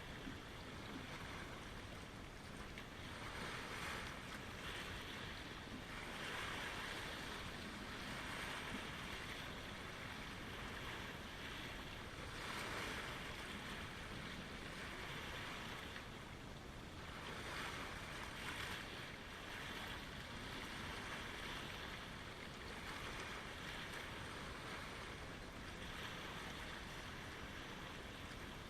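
Small lake waves lapping at the shoreline, each wash swelling and fading every few seconds over a steady rush of water.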